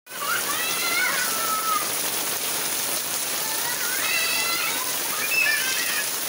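Steady rain falling on a paved alley with water splashing onto the pavement. Children's high voices call out three times over it.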